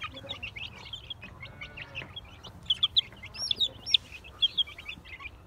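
Many young chicks peeping in quick, overlapping high chirps, with a few louder, longer peeps that rise and fall about three to four seconds in.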